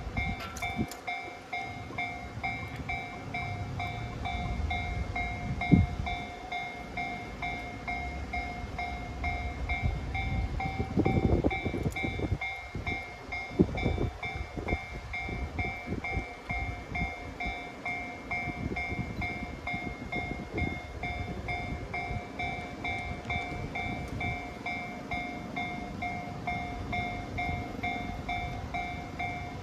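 Japanese railway level-crossing alarm ringing, its electronic bell repeating an even ding-ding that warns of an approaching train, over a low outdoor rumble. A sharp knock sounds about six seconds in.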